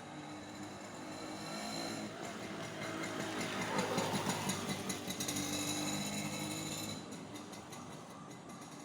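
A motor vehicle engine grows louder to a peak around the middle, then fades away, about seven seconds in.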